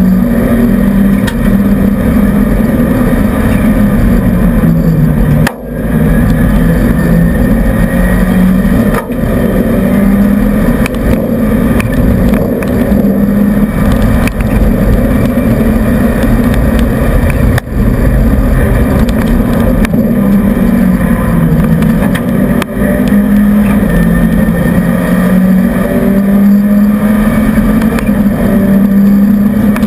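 Renault 5 GT Turbo's turbocharged four-cylinder engine driven hard, heard from inside the rally car's cabin. It is loud, with the engine note rising and falling and short breaks in the sound about five and a half, nine, eighteen and twenty-three seconds in.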